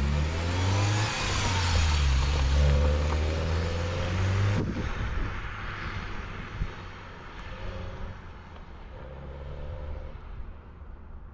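Turbocharged Mini Cooper with a K&N cold-air intake pulling away, the engine revving up in the first second and running loud for a few seconds. After that it drops off suddenly and carries on quieter, fading as it goes.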